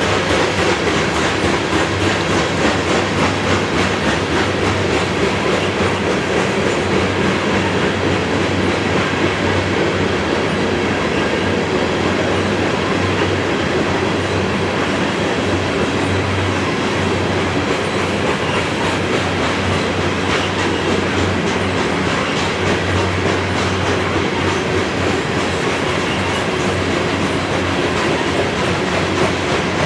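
Covered hopper cars of a freight grain train rolling past close by: a steady, loud rumble of wheels on rail with rapid, continuous clicking.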